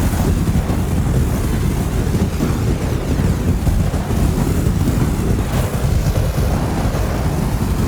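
A fire burning steadily: a loud, dense rumble with fine crackle, with no pauses or single loud pops.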